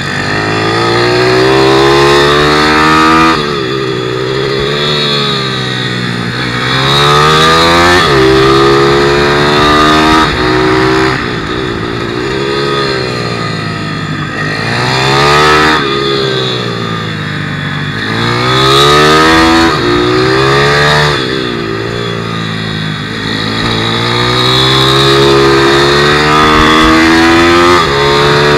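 A 160cc pit bike's single-cylinder four-stroke engine heard from onboard at racing pace. It revs up hard through the gears, then drops off when the throttle closes into each corner, over and over.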